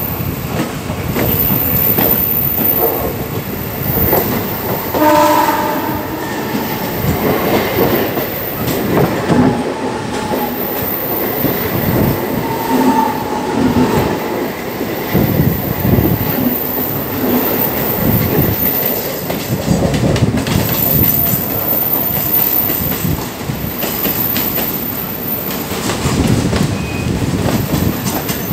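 Electric suburban trains running side by side on parallel tracks, heard from an open coach doorway: a steady rumble of wheels with irregular clatter over rail joints. A short horn sounds about five seconds in.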